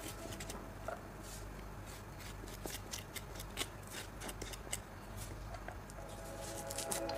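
Kitchen knife scraping the seeds and bitter white pith out of a halved green papaya: a run of short, irregular scraping strokes, the flesh rasping against the blade.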